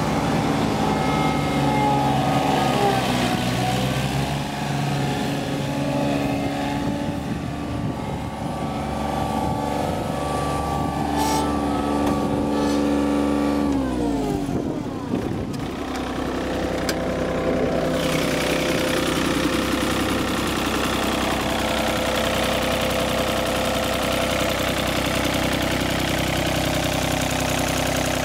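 Yanmar 3TNE82A three-cylinder diesel engine of a John Deere 3215B fairway mower running under way. About halfway through its pitch slides down as it is throttled back, and it settles into a steady idle.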